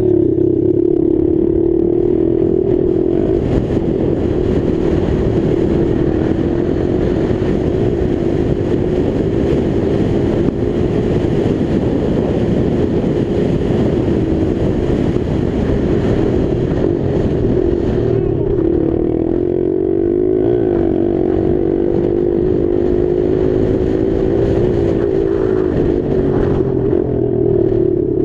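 Motocross dirt bike engine running hard at high revs, a loud, steady drone whose pitch rises and dips only slightly, with a rough rumbling wind noise on the helmet-mounted microphone underneath.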